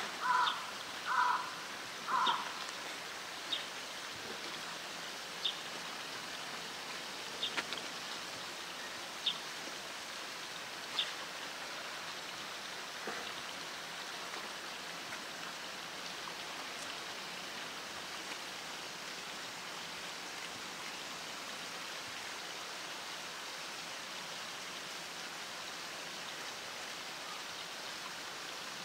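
Steady rush of flowing water in a zoo's polar bear pool, with a few short calls in the first two seconds and scattered faint high chirps over the next ten seconds.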